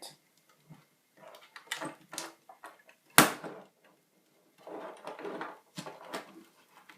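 Handling noises from opening the iMac G4's case: clicks and scraping in short clusters, with one sharp knock about three seconds in.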